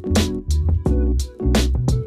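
Background music with a steady beat, bass and keyboard or guitar.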